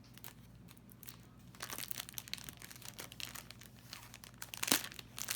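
Packaging being opened by hand, crinkling and tearing in irregular crackles that start about a second and a half in, with one sharp snap near the end.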